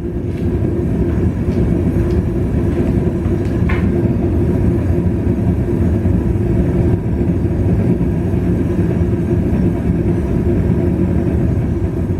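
Gas forge burner running just after lighting: a loud, steady low rush of burning gas with a faint steady hum in it.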